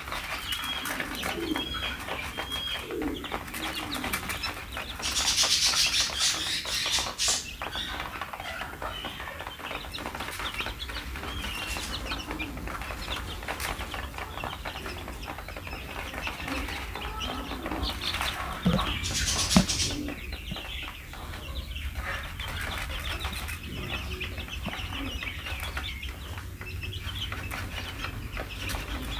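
A flock of fifteen-day-old chicks peeping and cheeping continuously while they peck at feed. Two louder rustling bursts come about five seconds in and again near twenty seconds.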